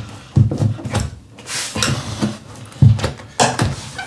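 An irregular series of sharp knocks and taps on vinyl plank flooring as the planks are pressed and tapped down so their click-lock joints seat.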